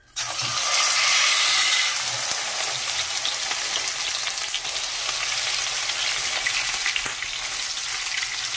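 A tomahawk steak sizzling in hot olive oil in a frying pan. The sizzle starts suddenly as the meat goes into the pan, is loudest for the first couple of seconds, then settles to a steady sear.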